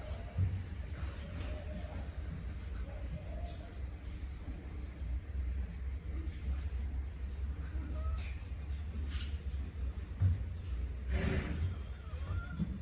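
Crickets chirping in a steady, high, pulsing trill over a low rumble. About eleven seconds in comes a louder breathy rush, the sleeping horse's snore or snort.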